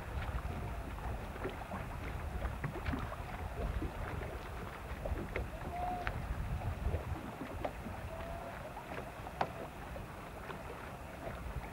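Wind buffeting the microphone as a steady low rumble, with water lapping and splashing in many small irregular slaps and a few faint short squeaks near the middle.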